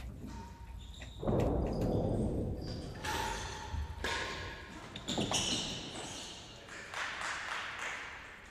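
A real tennis rally: about five sharp knocks of the hard ball off the rackets and the court's walls and floor, spread over several seconds, each echoing in the large hall.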